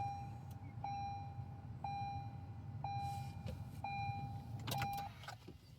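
A car's electronic warning chime beeping steadily about once a second, six times, then stopping near the end, over a low steady hum. It sounds with the ignition switched on during immobilizer key programming.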